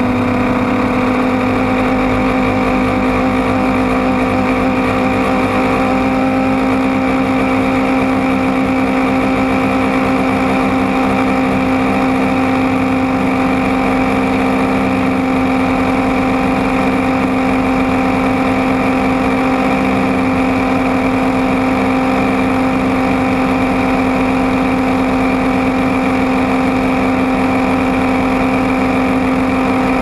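DJI Phantom quadcopter's motors and propellers whining steadily in flight, one constant pitched hum that holds the same pitch throughout, as picked up by the camera riding on the drone.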